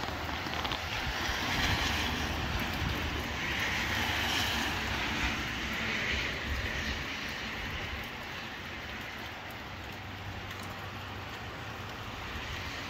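Gusty wind and rain: a rushing noise that swells in gusts through the first half and eases off after, with the wind's low rumble on the microphone.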